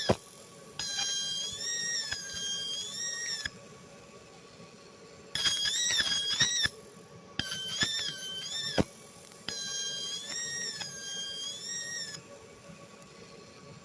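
30 W fiber laser cutting a silicon wafer: a high-pitched, whistling screech whose pitch wavers, heard in four passes of one to three seconds with short pauses between them. Sharp clicks come at the very start and about nine seconds in, over a faint steady tone.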